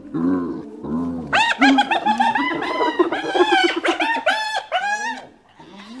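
Spotted hyena calling: a rapid string of short, arched cries that rise and fall in pitch. They start low, then turn higher, louder and faster from about a second in, with a stuttering, giggle-like run in the middle, and die away near the end.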